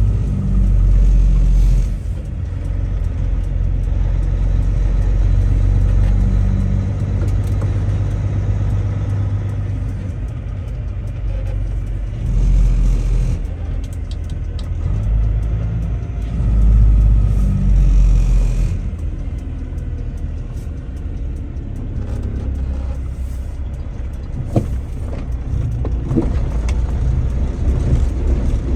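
Truck on the road: a steady low engine and road rumble that swells and eases a few times, with a few sharp clicks near the end.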